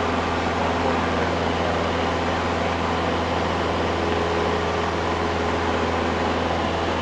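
Cessna 172's four-cylinder piston engine and propeller running steadily at climb power, a constant low drone with steady tones heard inside the cabin.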